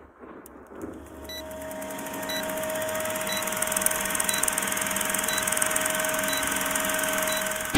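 Old film-projector countdown sound effect: a steady mechanical whirring with a faint held tone and a short tick about once a second, swelling over the first two seconds.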